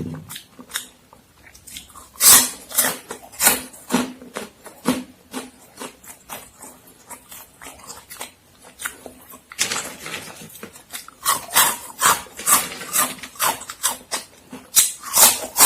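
Close-miked crunching and chewing of Momogi corn-stick snacks: clusters of sharp crunches with quieter chewing between, heaviest about two to five seconds in and again from about ten seconds on.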